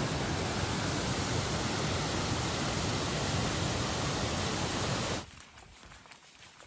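Waterfall rushing in a strong flow swollen by rain, a steady roar that cuts off suddenly about five seconds in, leaving a much quieter background with faint ticks.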